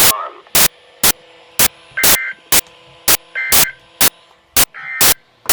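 Weather radio receiver hissing with static and a steady hum where the broadcast voice has dropped out mid-sentence, a sign of the signal breaking up. Sharp loud clicks come about twice a second, and three brief garbled chirps sound about a second and a half apart.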